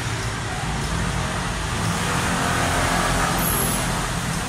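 Road traffic close by: a motor vehicle's engine runs with a steady low hum, growing louder about two to three seconds in as it passes.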